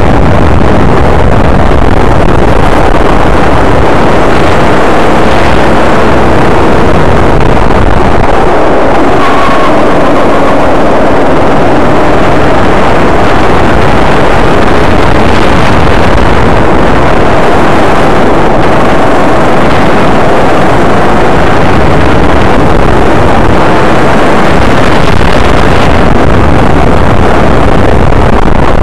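Go-kart engine running hard, heard from on board the kart, its revs rising and falling as it brakes and accelerates through the corners, over a constant rush of noise.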